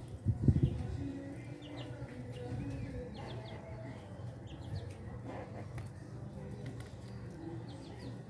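A few short, high bird chirps over a steady low hum, with a single low thump about half a second in.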